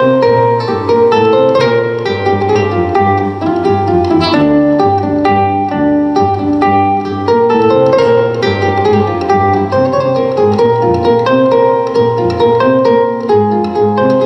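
Solo plucked string instrument played live: a quick, continuous run of picked notes, several ringing over one another.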